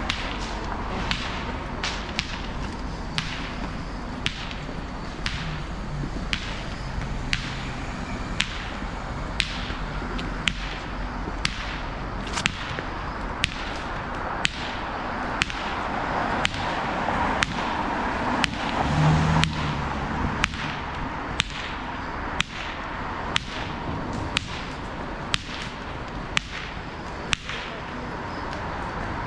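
Footsteps clicking at a steady walking pace, about once a second, over a steady hum of city street noise.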